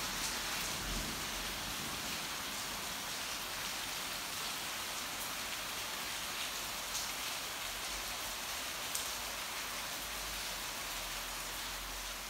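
Heavy thunderstorm rain falling, a steady even hiss, with a few brief louder ticks of single drops striking.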